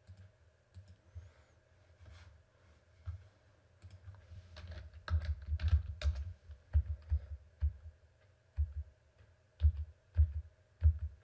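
Typing on a computer keyboard: irregular keystrokes, sparse at first and coming quicker from about four seconds in.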